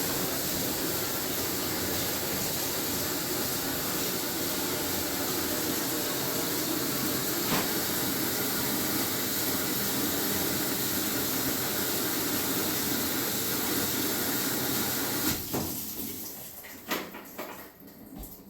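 Samsung top-load washing machine filling with water during a test cycle: a steady hiss of water rushing into the tub that cuts off about fifteen seconds in, followed by a few light clicks.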